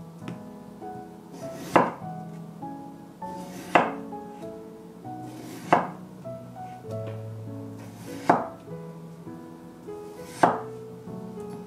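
A chef's knife slicing through peeled raw potato onto a wooden cutting board: five sharp cuts about two seconds apart, over light background music.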